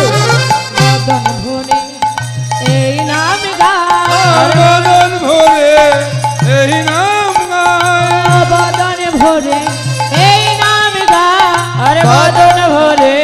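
Bengali kirtan music: khol drums beating a steady repeating rhythm under a wavering melodic line, with no words.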